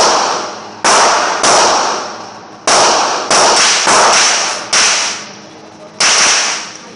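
Gunshots echoing in an indoor shooting range, about eight shots at irregular spacing, each with a long reverberant decay. They come from other shooters, as the pistols on this bench lie unfired.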